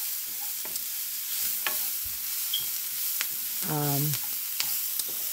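Diced celery and onion sizzling in olive oil in a nonstick frying pan, stirred with a slotted spoon that clicks and scrapes against the pan every so often.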